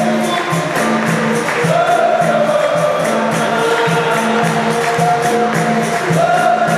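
Capoeira roda music: a group singing together over a steady beat of pandeiro jingles and hand clapping, with a low steady tone underneath.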